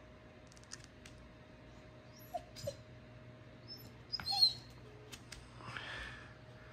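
A dog nosing under a couch for her ball: quiet sniffing and small scuffling clicks, with a few short whimpers. The loudest is a brief high sound about four seconds in.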